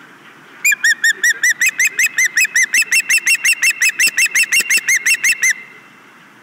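Osprey calling close to the nest microphone: a loud, rapid series of high chirps, about five or six a second, starting just under a second in and stopping after about five seconds.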